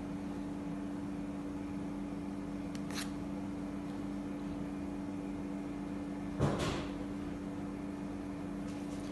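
Steady low electrical hum of a running kitchen appliance, with a light tap about three seconds in and a brief metal clink and scrape about six and a half seconds in, a spoon against the tin of desi ghee.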